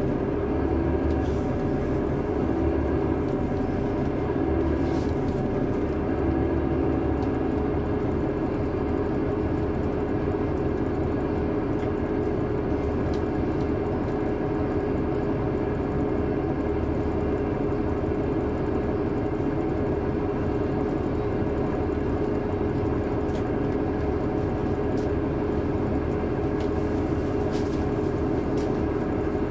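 Caterpillar C9 ACERT diesel engine of a 2003 Neoplan AN459 articulated bus, heard from inside the bus, running steadily under way with a deep drone. The engine note shifts a few times in the first several seconds, then holds even, with a few faint clicks and rattles.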